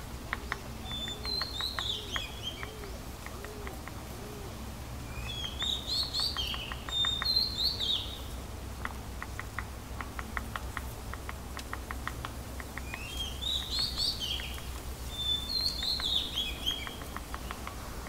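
Freckle-breasted woodpecker tapping on wood in runs of quick, light taps. A bird calls over it in three bouts of high, falling notes, and these calls are the loudest sounds.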